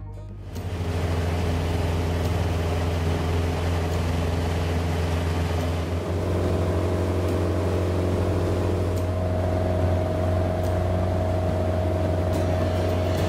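Motorboat engine running steadily under way, a low hum with a rushing noise over it. The engine note shifts about six seconds in.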